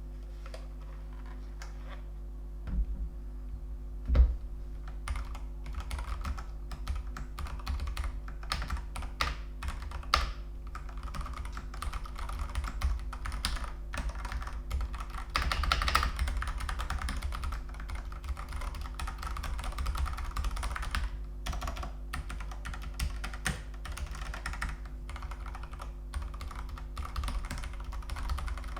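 Fast, continuous typing on a Ducky One 3 TKL mechanical keyboard with Cherry MX Red linear switches. It starts a couple of seconds in, with one louder knock about four seconds in, over a low steady hum.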